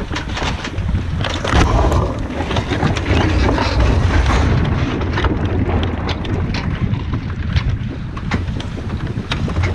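Wind buffeting the microphone and water rushing past the hull of a racing sailing yacht under way, with sharp clicks scattered throughout from the cockpit sheet winches being worked by the crew.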